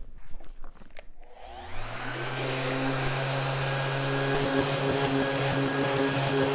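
Random orbital sander with an 80-grit disc and a dust-extraction hose, sanding an end-grain walnut cutting board. A few light knocks come first; about a second and a half in the motor spins up with a quick rising whine, then runs steadily with an even hum and hiss.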